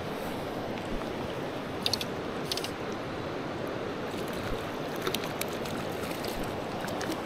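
Shallow mountain river flowing steadily over rocks, with a few light clicks about two and two and a half seconds in.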